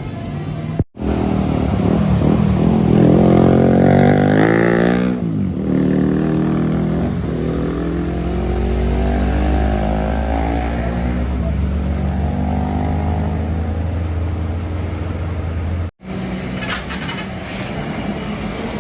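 Heavy truck diesel engine under load, its pitch rising over a few seconds and then dropping, then running on with a deep steady hum. The sound cuts out briefly about a second in and again near the end.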